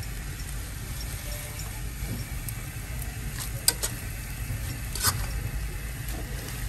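Rice vermicelli and prawns sizzling in a wok as they are tossed with metal tongs, stir-fried until the sauce dries, with a few sharp clicks of the tongs against the pan, the loudest about three and a half and five seconds in.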